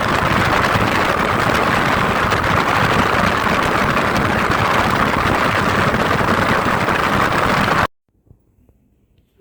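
Loud, steady rushing noise, typical of a running vehicle or engine, that cuts off abruptly about eight seconds in.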